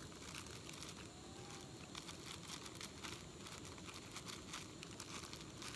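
Faint crinkling of a plastic zip-top bag as dehydrated vegetables are shaken out of it into a cooking pot.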